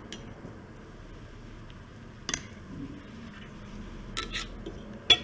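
A glass separating funnel being handled, giving a knock about two seconds in, two light clicks a little after four seconds and a sharp glassy click just before the end.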